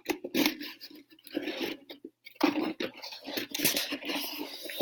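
Cardboard game-console box being handled and opened: irregular scraping, crunching and clicking of cardboard and packaging, busiest in the second half.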